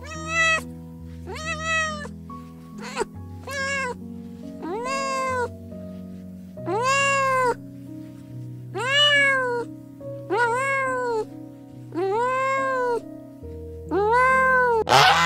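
Cat meowing about ten times in a row, each meow under a second long and arching up then down in pitch, over background music.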